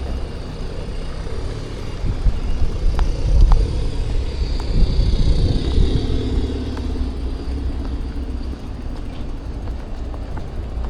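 Street traffic: a steady low rumble of motor vehicles, swelling as a vehicle passes between about two and seven seconds in.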